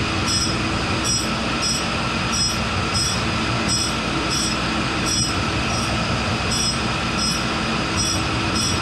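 Tool and cutter grinder's wheel grinding a piece of hardened steel, a steady hissing whine over machine hum, with a faint high tick repeating about twice a second.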